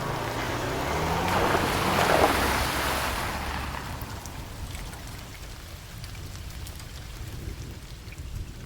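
A car engine revving up as the car pulls away, its sound swelling to a peak about two seconds in and then fading into the distance over steady rain.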